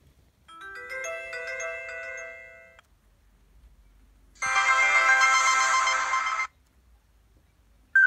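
Preloaded message alert tones of a Huawei G7300 phone previewing one after another. First comes a short run of bell-like notes stepping up in pitch, lasting about two seconds. After a pause there is a louder, denser cluster of bright tones, also about two seconds, that cuts off suddenly.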